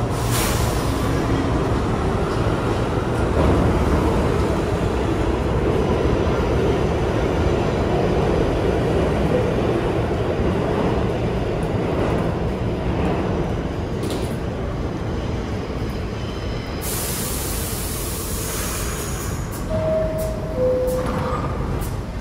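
New York City subway train running with a steady rumble that eases a little past the middle. A hiss of air comes in about three-quarters of the way through, and near the end a two-tone descending door chime sounds.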